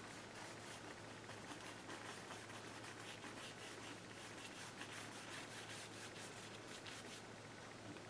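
Faint, quick, irregular strokes of a paintbrush, its bristles rubbing and dabbing on the canvas with thinned oil paint.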